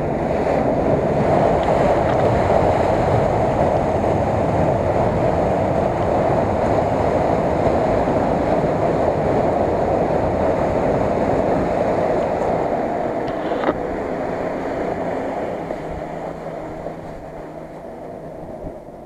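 Nissan Patrol on tractor-tread tyres driving hard through a flooded mud track: its engine works under heavy load while the wheels churn and splash through water and mud. The sound fades over the last few seconds as it pulls away.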